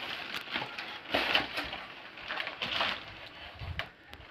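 Clear plastic bag crinkling and rustling in irregular bursts as hands pull and smooth it around a soundbar lying in a polystyrene foam tray.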